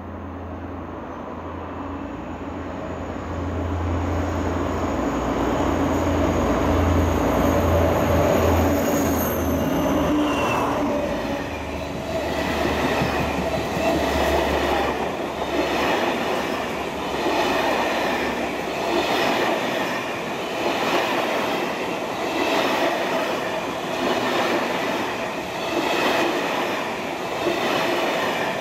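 A diesel locomotive passes through the station without stopping: a low engine hum and a high whine that drops in pitch about nine seconds in as it goes by. A long rake of passenger coaches follows, rumbling past with a regular clickety-clack of wheels over rail joints, roughly every two seconds.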